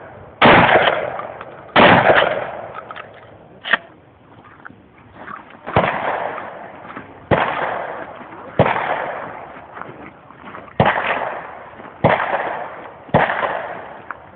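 Shotgun fired eight times at an uneven pace, each shot followed by a tail that dies away over about a second. There is a pause of about four seconds after the second shot, broken by one smaller sharp crack.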